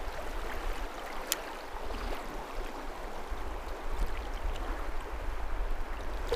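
Steady rush of river current, with uneven low rumbling on the microphone and a single sharp click about a second in.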